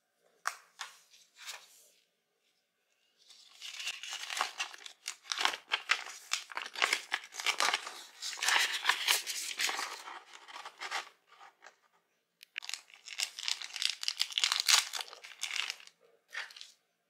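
Folded paper instruction leaflet being unfolded and handled, crinkling and rustling in two long stretches of crackly noise, with a few short rustles near the start.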